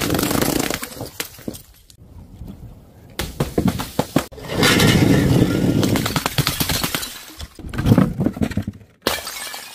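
Glass bottles and other objects dropped from a height smashing onto stone paving tiles: a series of loud crashes with breaking glass, each dying away before the next.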